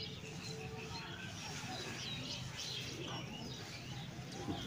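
Birds chirping in many short, high calls, over the soft swish of rice being rubbed by hand in water.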